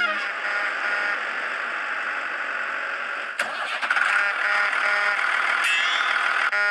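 Engine running steadily. There is a sharp click about three and a half seconds in, the sound grows somewhat louder after it, and it cuts off abruptly at the end.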